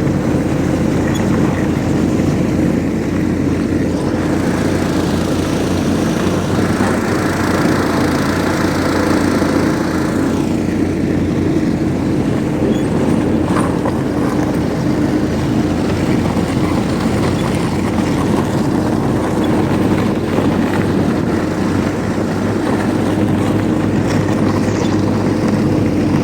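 Snowmobile engine running at a steady speed while it tows a long train of loaded sleds; the sound cuts off suddenly at the end.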